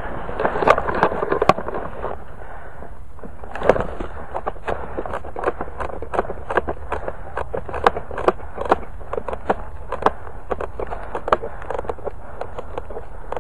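Footsteps crunching through dry leaf litter and brush as a person pushes through undergrowth. There is a dense crackling of branches and leaves near the start, then steady crisp crunches about two a second.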